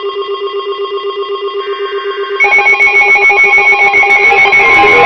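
Weather alert radio receivers sounding their alarms: a rapidly pulsing electronic tone, with a second, louder alarm joining about two and a half seconds in and a steady tone added near the end.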